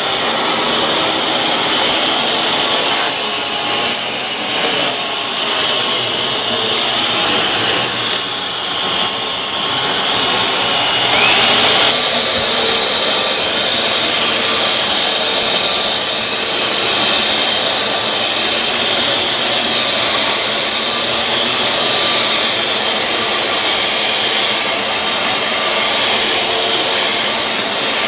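Eureka AirSpeed All Floors upright vacuum cleaner running steadily, a dense rushing noise with a high, steady whine on top. It shifts a little in the first several seconds and swells briefly about twelve seconds in.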